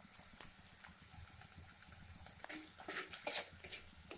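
Spatula scraping and knocking against a kadai while stirring a thick frying masala: a few light ticks, then from about halfway a quick run of sharp scrapes, over a faint steady frying hiss.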